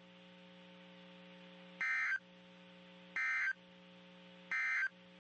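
Three short bursts of warbling digital data tones, about 1.4 seconds apart: the EAS/SAME end-of-message code sent three times by a NOAA Weather Radio transmitter to close the tornado watch alert. A faint steady hum fills the gaps between the bursts.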